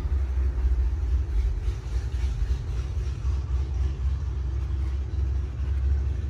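A low, uneven rumble with a faint hiss above it.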